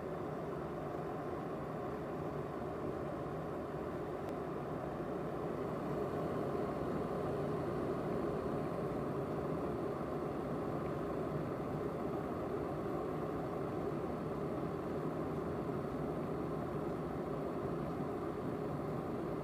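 Glass electric kettle heating water: a steady rushing noise with no distinct clicks or tones.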